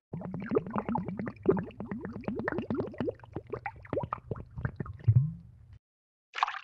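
Cartoon bubbling sound effect: a rapid run of short rising bloops like gurgling bubbles, stopping abruptly about six seconds in, followed by one brief separate splash-like burst near the end.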